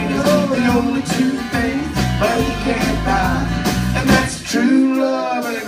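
Live country band playing: guitars picked and strummed over an upright double bass, with a melody line that bends in pitch. The bass drops out for a moment near the end.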